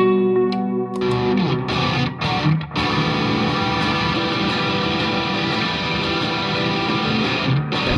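Background music led by guitar, turning into a fuller band sound with distorted electric guitar about a second in.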